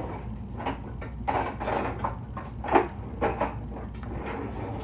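Kitchen cupboard and containers being handled: a series of knocks and clatters, the loudest close to three seconds in, over a steady low hum.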